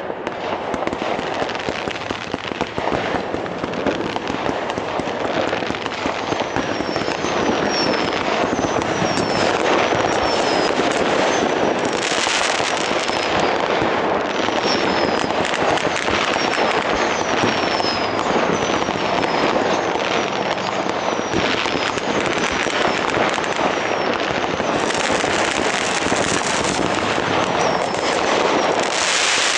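Fireworks going off in dense, continuous crackling of many small bursts. From about seven seconds in there is a run of short high whistles, each falling in pitch, and there are spells of hissing in the middle and near the end.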